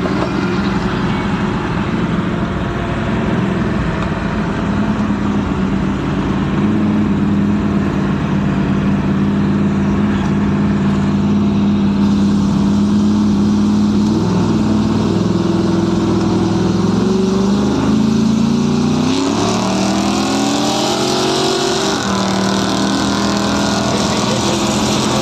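Car engines running hard under acceleration, heard from inside the cabin of a 1966 Chevrolet racing a Holden Commodore VE with a 6.0-litre V8. The engine note holds steady, then drops and climbs again several times in the second half, as gears change.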